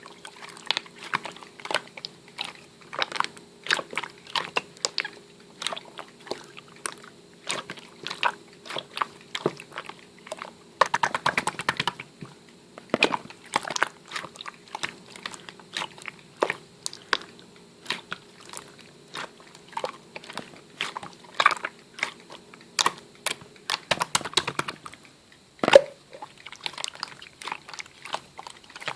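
Irregular sharp clicks and taps, several a second, with denser clusters now and then, over a faint steady hum.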